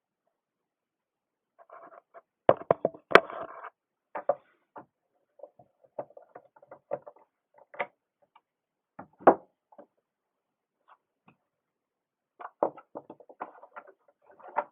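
Irregular clicks, knocks and short scrapes of hand tools working on a Homelite XL top-handle chainsaw and its parts being handled during disassembly. There is a sharp click about three seconds in and a heavier knock about nine seconds in.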